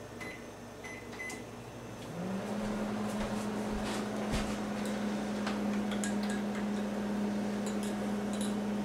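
Countertop microwave oven: a few short keypad beeps, then about two seconds in the oven starts with a brief rising pitch and settles into a steady low running hum as it heats butter.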